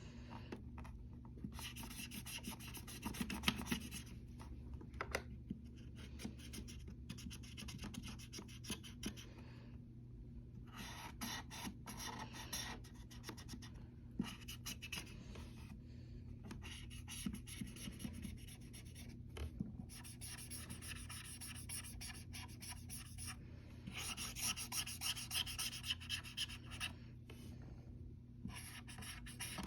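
Repeated scratchy rubbing strokes by hand, in runs of a few seconds with short pauses between, over a steady low electrical hum.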